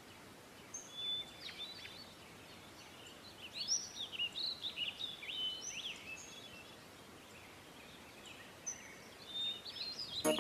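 Birds chirping and whistling in scattered bursts of short, quick calls over a faint steady background hiss.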